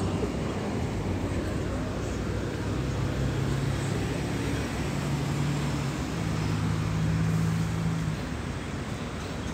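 A low engine drone over a steady outdoor rumble. The hum holds steady from about three seconds in, rises a step in pitch around six seconds, and fades out near eight seconds.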